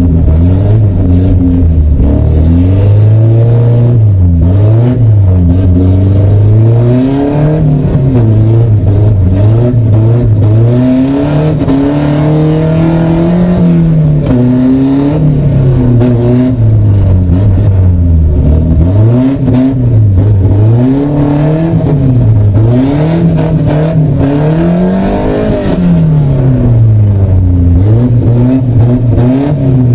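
A Volvo 740 drift car's engine revving hard and dropping back again and again, the pitch swinging up and down every second or two as the throttle is worked through slides on an ice track.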